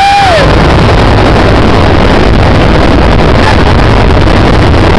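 Helicopter cabin noise in flight: rotor and engine running loud and steady, with wind buffeting the microphone. A short rising-and-falling cry, a passenger's whoop, right at the start.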